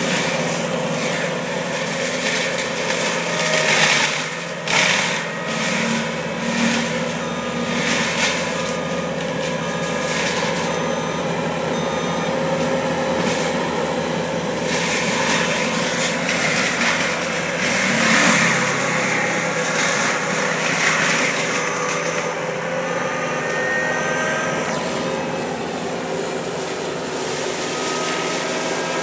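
Bobcat compact track loader's diesel engine running steadily under load while its forestry mulcher head grinds through brush, with louder spells of shredding noise coming and going.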